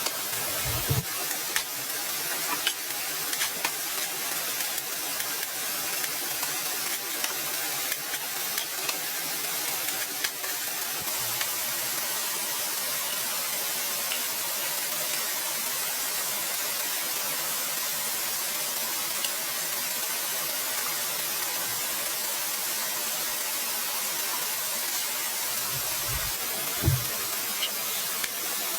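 Steady hiss with scattered faint clicks in the first half and a short low thump near the end.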